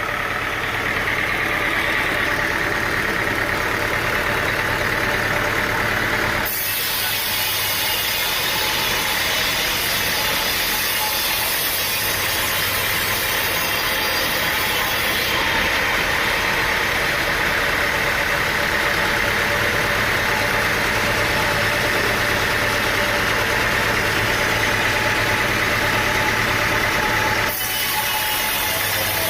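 An engine running steadily, its sound changing abruptly about six seconds in and again near the end.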